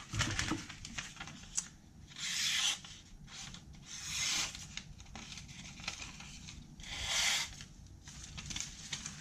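A knife blade slicing through lined notebook paper in three strokes, each a short hiss, about two, four and seven seconds in. It is a paper-slicing sharpness test of the Survive! Knives EDC-4's MagnaCut factory edge.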